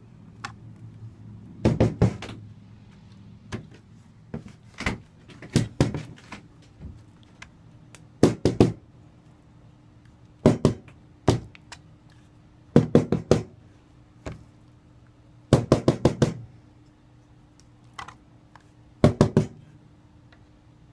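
Notched trowel knocked against the rim of a bucket of tile adhesive to shake off the adhesive, in quick clusters of three to five sharp knocks every two to three seconds.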